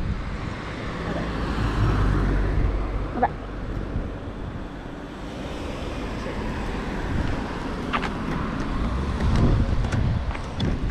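Cars driving past on the road close by: engine hum and tyre noise that swell about two seconds in and again near the end.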